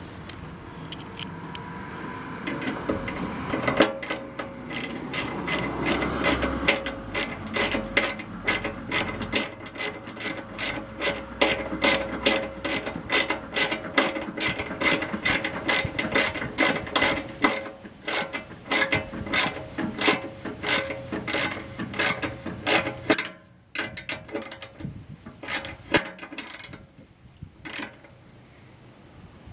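Ratchet wrench clicking in a long, even run of about three clicks a second. The clicks thin out and come more sparsely near the end, as bolts on a mini excavator are worked.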